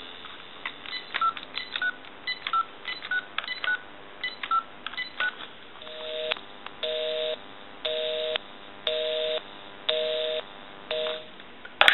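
A GE DECT 6.0 cordless phone's keypad tapped through a phone number, each press a short beep with a click. From about six seconds in comes a busy signal: a two-tone buzz, on for about half a second and off for about half a second, the sign that the called line is busy.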